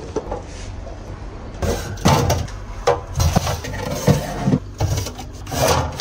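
Clear plastic fridge organizer bins being slid and set in place on a refrigerator shelf: irregular plastic scrapes and knocks, starting about a second and a half in.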